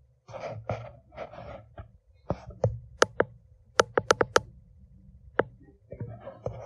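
A run of about ten sharp knocks and clicks, most of them close together in the middle, after some brief breathy rustling near the start.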